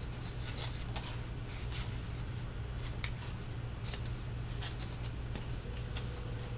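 Light rustles and small clicks of a strip of patterned cardstock being folded and handled by hand, over a steady low hum.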